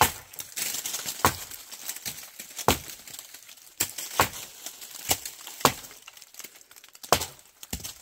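Dry wood cracking as branches are worked off a leafless tree: about nine sharp cracks and knocks at irregular intervals, with twigs rustling in between.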